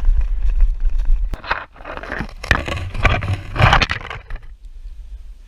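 Wind and handling rumble on a body-worn microphone, followed by irregular rustling and scraping of running footsteps and gear for about three seconds, then quieter near the end.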